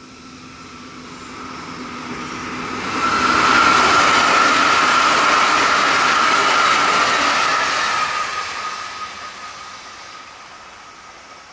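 JR 383 series electric multiple unit passing at speed. The rail noise builds up, holds loud for about five seconds in the middle, then fades away as the train recedes. A steady high tone runs through the pass.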